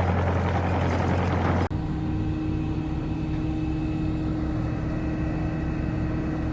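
Engine running: a loud, low, steady drone that cuts off abruptly about two seconds in. It is replaced straight away by a steady engine idle with an even low pulse.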